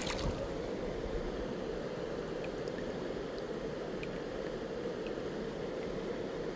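Steady rush of a shallow river flowing over cobbles.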